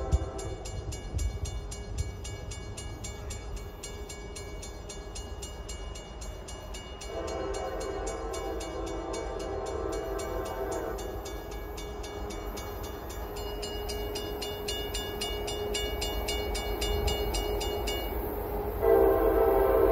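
Nathan K5LA five-chime horn on an approaching Norfolk Southern EMD locomotive sounding a crossing signal. One long blast starts about 7 s in and lasts about four seconds, and a second, louder blast begins near the end. Beneath the horn runs a steady low rumble from the approaching diesel locomotives.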